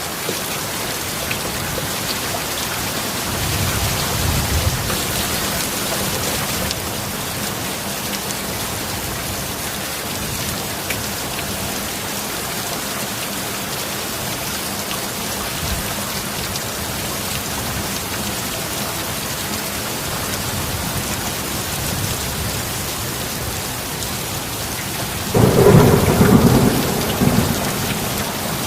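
Steady heavy rain, with a low roll of thunder about four seconds in and a louder rumbling peal of thunder near the end.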